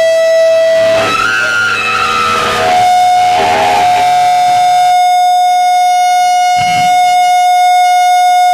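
Electric guitar amplifier feedback: a loud, sustained whine held on one pitch, which jumps slightly higher about three seconds in and then holds steady. The other sounds under it stop about halfway through.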